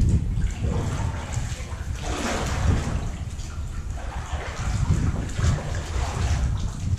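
Double-bladed kayak paddles dipping and splashing through canal water in several uneven strokes, the loudest about two seconds in, over a steady low rumble.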